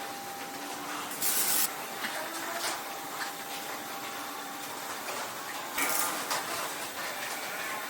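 Two short bursts of hissing spray, a little over a second in and again near six seconds in, over a steady background hum with a few faint clicks.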